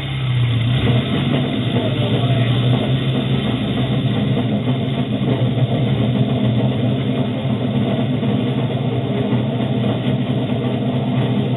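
Suzuki Samurai rail cart's four-cylinder engine running steadily as the cart rolls along the rails, heard from just above the open engine bay.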